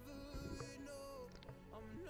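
Background music: a song with a steady beat and held melody notes.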